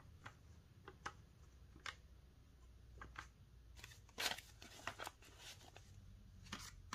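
Paper banknotes rustling and flicking as they are handled and counted by hand, in faint scattered strokes, the loudest a little past halfway.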